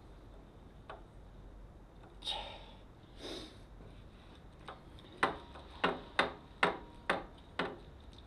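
Metal parts of a motorcycle's top yoke (triple clamp) and steering head being handled and fitted: two short swishes, then six sharp, ringing metallic knocks about two a second.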